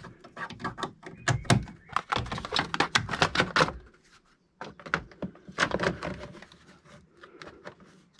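Hard plastic air-intake duct parts in a Toyota GR Yaris engine bay being handled and pushed into place: a quick run of clicks, knocks and scraping, a short pause about four seconds in, then more knocks and scrapes.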